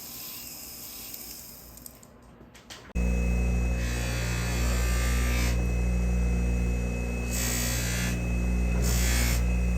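Jewellery polishing motor switching on about three seconds in and running with a steady hum, used for the final polish of a ring. Recurring bursts of hiss sound over the hum.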